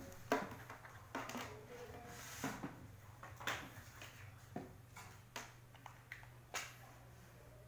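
Irregular handling clicks and knocks, about one a second, from the plastic case of a TSC TE-244 barcode label printer and its power adapter and cable. A faint steady low hum lies underneath.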